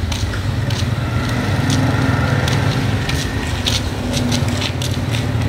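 A small motorbike engine running steadily, with scattered clicks and knocks over it.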